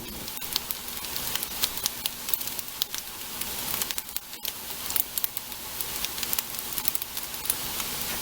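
Tofu nuggets frying in hot oil in a frying pan: a steady sizzle with frequent sharp pops and crackles of spitting oil.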